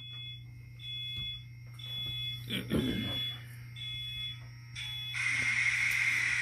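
Sound decoder in a Kato N-scale SD70ACe locomotive playing its diesel start-up sequence through its small speaker. It gives six evenly spaced high beeps, and about five seconds in a loud steady hissing rush takes over.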